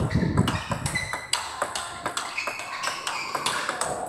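A table tennis rally: the celluloid ball clicks sharply and irregularly as it is struck by the rubber-faced paddles and bounces on the table.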